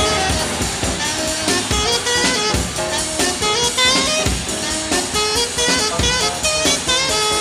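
Background instrumental music with a drum kit keeping a steady beat under melodic notes.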